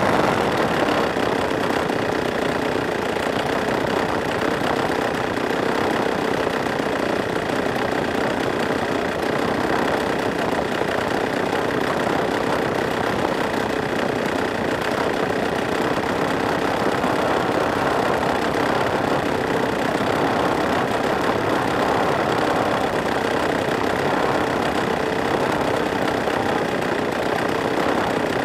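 Husqvarna chainsaw's two-stroke engine, converted to power a giant-scale radio-control airplane, running steadily at a constant speed.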